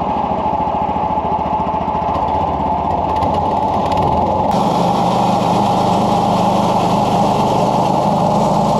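Small gasoline engine running steadily at high speed, with a rattling, even vibration; about halfway through its note shifts and a higher hiss joins it.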